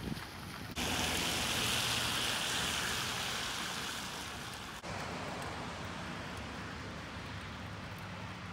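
Steady hiss of rain during a thunderstorm, starting suddenly about a second in and dropping abruptly to a quieter hiss about five seconds in, with a low steady hum underneath.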